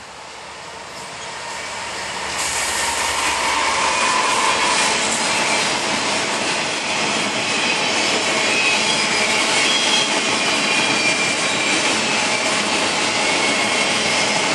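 Norfolk Southern train passing close: the lead GE C40-9W diesel locomotives come up loud by about two seconds in, then the steady rolling noise of empty welded-rail flatcars going past on the rails.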